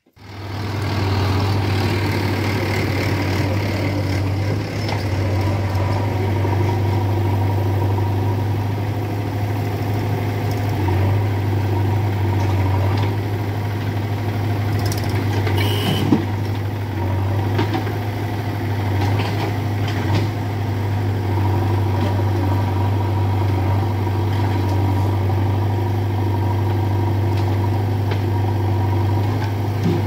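Diesel engines of a Mahindra farm tractor and a JCB backhoe loader running steadily at idle, a deep even hum, with one brief sharp knock about halfway through.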